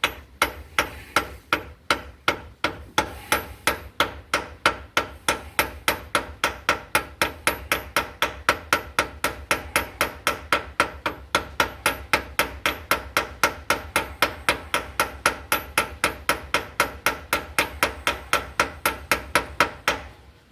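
Hammer striking a wooden block used as a drift, a long run of evenly spaced blows about three to four a second, driving a part in until it sits flush.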